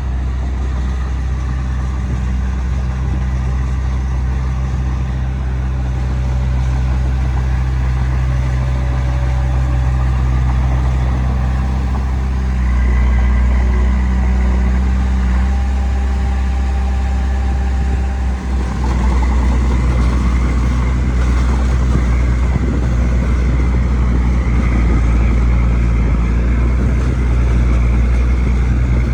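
Heavy diesel engine of earthmoving machinery running steadily, with its pitch and load shifting as it works. It gets louder partway through and drops out briefly for a moment a little past the middle before carrying on.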